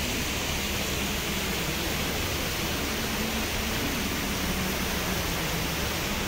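Fountain water splashing and falling steadily, a constant hiss.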